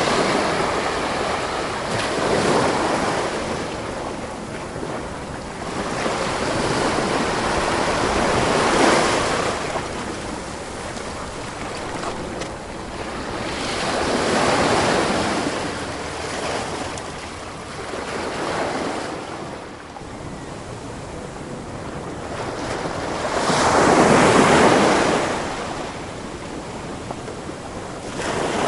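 Sea waves breaking and washing on a shore, each surge swelling and fading every few seconds, with the loudest wave near the end.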